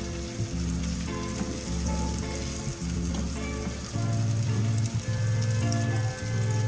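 Food sizzling in a frying pan, a steady crackling hiss, with background music and its bass line underneath.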